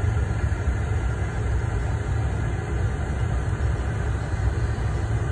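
Steady low rumble of an idling vehicle engine with street noise, no distinct event.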